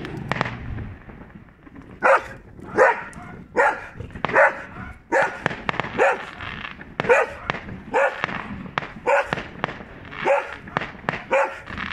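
A dog barks over and over, about one bark a second, starting about two seconds in. Under it, fireworks keep popping and crackling in short sharp cracks.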